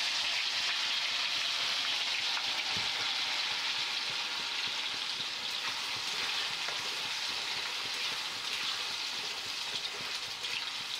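Spice-coated banana slices deep-frying in hot oil in an iron kadai, freshly dropped in: a steady, dense sizzle that eases slightly toward the end.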